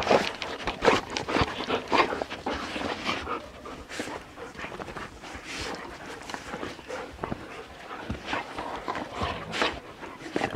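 Several Siberian huskies panting and licking right at the microphone, with quick irregular sniffs and snuffles. Loudest and busiest in the first few seconds, then a steadier stream of panting and licking.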